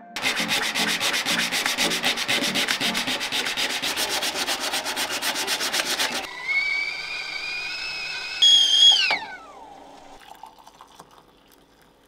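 Rapid back-and-forth hand sanding on the van's welded steel step, many strokes a second, stopping abruptly after about six seconds. Then a stovetop kettle whistles at the boil, its pitch creeping up, briefly louder and shriller, before sliding down and dying away as it comes off the heat.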